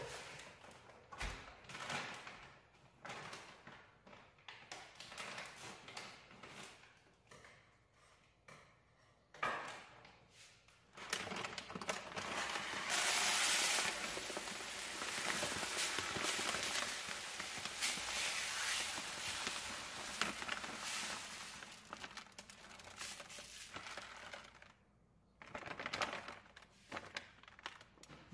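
Kitchen handling sounds: scattered clicks, knocks and rustling, then a steady rushing hiss for about twelve seconds, loudest early on, before the clatter returns.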